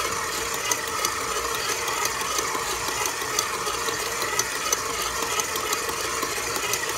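Electric stand mixer running steadily with a dough hook, kneading bread dough in a stainless steel bowl: an even motor whine with a faint, uneven light rattle of the hook and bowl.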